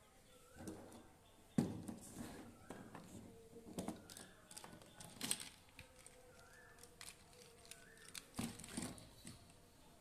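Plastic toy vehicles being handled and set down on a cloth: a few light plastic clatters and knocks, the sharpest about one and a half seconds in, with rustling of the cloth between them.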